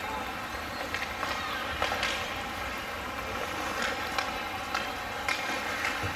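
Ice hockey game in play: a steady rink din with scattered sharp clacks of sticks and puck, about a dozen in all.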